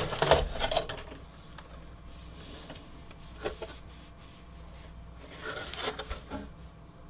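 Parts of a desktop computer being handled during disassembly: faint, scattered clicks and short rubs of metal and plastic, with a few louder handling noises in the second half.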